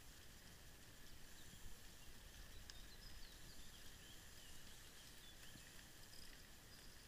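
Near silence: a faint low rumble and hiss, with a few faint high bird chirps in the middle.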